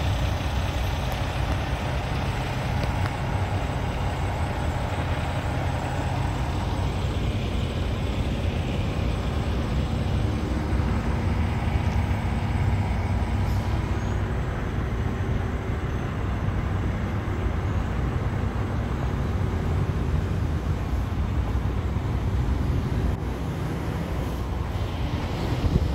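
Diesel engine of a 2016 Freightliner Cascadia semi tractor idling steadily, a low, even rumble.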